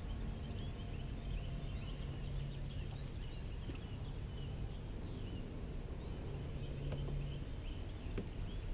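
Birds chirping and singing outdoors, many short high calls, over a low steady rumble. A faint low hum runs through the middle, and there are a few light clicks.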